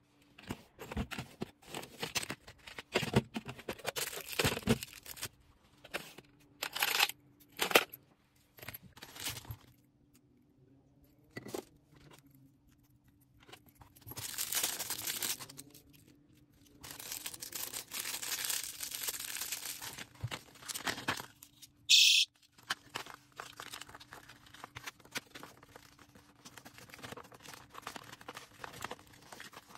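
Orders being packed by hand: packaging crinkling and tearing, with many small taps and clicks, and two longer stretches of continuous rustling and tearing near the middle. About twenty seconds in comes one brief, sharp, high-pitched burst, the loudest sound, over a faint steady hum.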